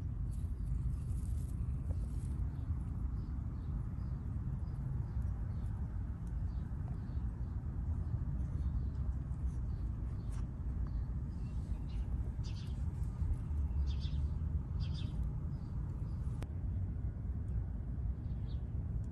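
Small birds chirping in short, high, repeated notes over a steady low rumble.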